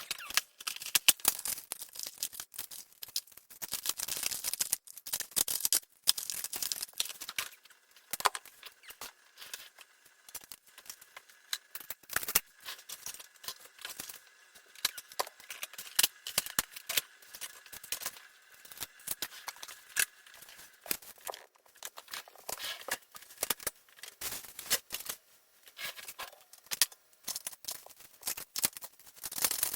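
Small tools and metal laptop parts being handled inside an opened laptop: dense, irregular clicks, taps and scrapes.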